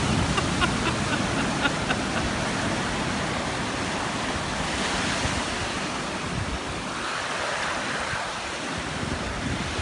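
Ocean surf breaking and washing up the beach in a steady wash, with wind gusting on the microphone.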